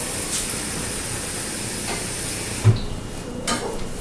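A cup of water poured into a hot pan of brown rice fried in olive oil, hissing and steaming steadily. The hiss stops about two and a half seconds in, with a knock.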